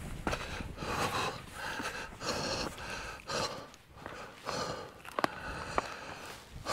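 A hiker breathing hard close to the microphone, a string of short heavy panting breaths, with a few sharp clicks from footsteps or handling.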